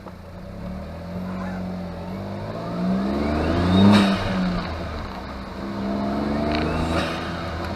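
Honda S660's small turbocharged three-cylinder engine heard inside the cabin, accelerating and revving, climbing in pitch to a loud peak about four seconds in, dropping back, then climbing again near the end.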